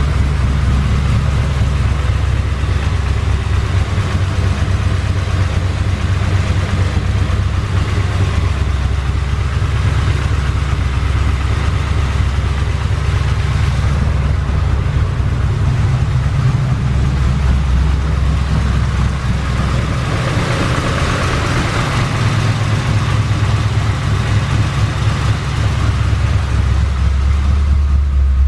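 C4 Corvette's V8 engine idling steadily, warming up after a new dual-core radiator was fitted so the cooling system can be checked for leaks.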